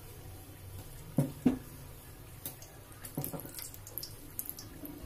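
Samosas deep-frying on a low flame in a kadai of hot oil: a soft, steady sizzle with scattered fine crackles. Two sharp knocks come about a second in, and a few more knocks come near the middle.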